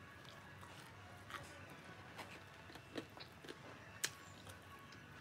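Quiet room with faint eating sounds: a few small clicks and smacks as fried chicken is picked apart by hand and chewed, the sharpest about four seconds in.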